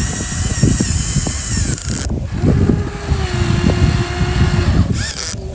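Radio-controlled model excavator running, its electric motors and hydraulic pump whining over a low, uneven rumble. About two seconds in, the high whine cuts out and a lower steady whine takes over.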